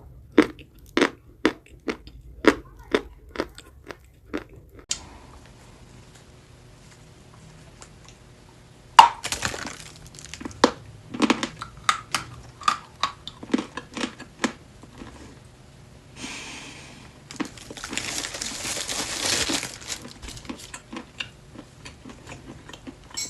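Edible chalk being bitten and chewed: a run of sharp crunches about two a second, then after a pause a loud crack and more crunching. Later come two stretches of steady rustling and crumbling noise among the crunches.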